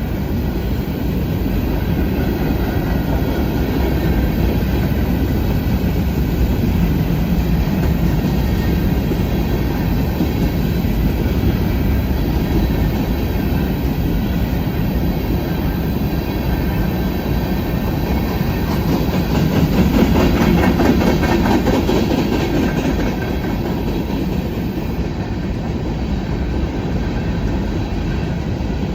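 Freight cars of a long Norfolk Southern manifest train rolling past: a steady rumble of wheels on rail with clickety-clack over the joints, briefly louder about two-thirds of the way through.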